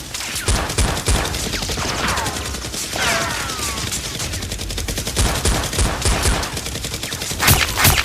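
Sustained rapid gunfire, many shots a second, with falling whistles about two and three seconds in.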